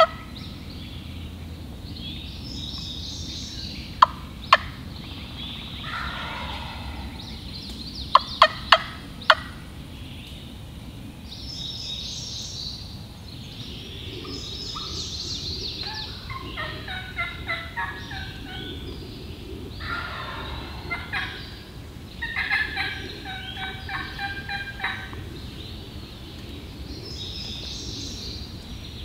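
Wild turkey gobbling in the distance, twice in the second half, while songbirds sing throughout. A few sharp turkey clucks stand out as the loudest sounds: one about four seconds in and a quick run of four at around eight seconds.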